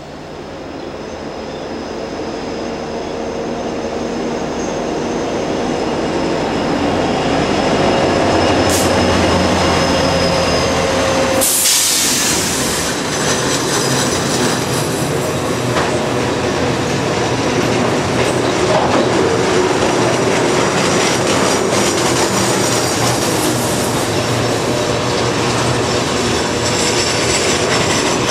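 CSX diesel-hauled freight train coming downhill through curves and passing close by: the locomotives' engines grow louder over the first several seconds, a brief loud rush of noise comes a little over eleven seconds in, and then the cars roll past with wheel squeal and clickety-clack.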